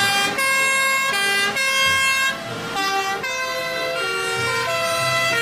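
Sirens of several Austrian fire engines sounding together as a convoy drives by. Their overlapping two-tone horns step up and down in pitch about every half second.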